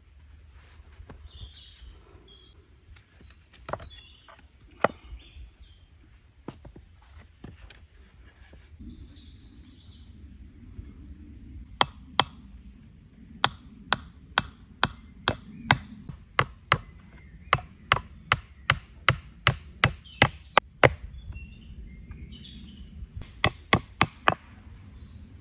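Axe chopping wood: a few scattered blows at first, then a steady run of sharp chops about two a second, and a quick burst of four near the end.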